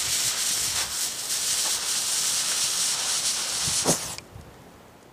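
A fuse hissing steadily as it burns down into a pile of black powder. Near the end the powder ignites all at once with a single sharp pop, and the hiss stops and dies away.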